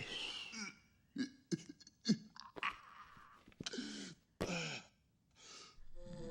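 A sleeping cartoon man's snorts, gasps and throat noises: about eight short separate sounds with brief silences between them. Soft music comes in near the end.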